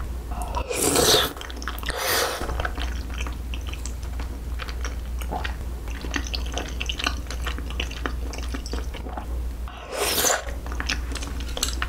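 Close-miked eating sounds: flat glass noodles and rice cakes in a creamy rosé sauce being slurped and chewed, with many small wet clicks and smacks. Three louder slurps come about a second in, about two seconds in, and near the end.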